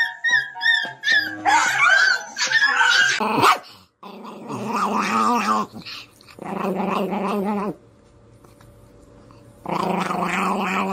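Small dog, a Chihuahua, growling and grumbling in wavering stretches of a second or two each, with short pauses between. Other short pitched cries and sounds fill the first few seconds.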